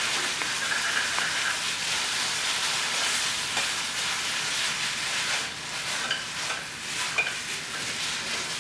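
Noodles and ginger sauce sizzling steadily in a hot pan, with occasional faint clicks of a utensil stirring.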